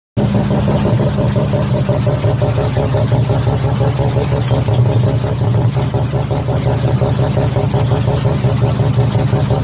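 Mazda RX-7's rotary engine idling steadily, a fast, even pulsing from the exhaust with no revving.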